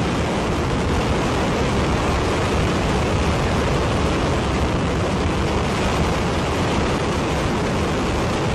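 Ares I first-stage five-segment solid rocket motor firing on a horizontal static test stand at full burn: a loud, steady, unbroken rush of exhaust noise, heaviest in the deep low end.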